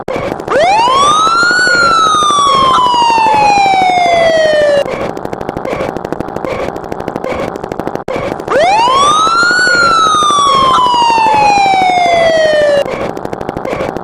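A siren sound effect played twice: each time a wail rises quickly in pitch, then slides slowly back down for about three seconds and cuts off abruptly. The second one starts about eight seconds in, and a steady fast patter runs underneath.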